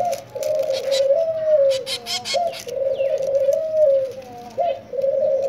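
Pigeons cooing, one low coo after another, each phrase about a second and a half long. A short burst of sharp clicks comes about two seconds in.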